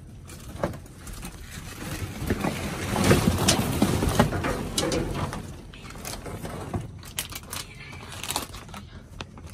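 Cardboard boxes and plastic packaging rustling and crinkling as trash is rummaged through by hand, with many short crackles and clicks, loudest a couple of seconds in.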